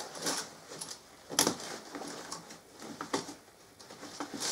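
Curtain hooks being pushed out of their holders on a curtain rail: a handful of short sharp clicks, the loudest about a second and a half in, with curtain fabric rustling between them.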